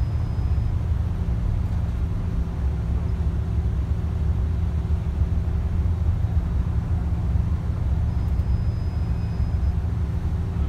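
Tour bus riding along a highway, heard from inside the cabin: a steady low rumble of engine and road noise.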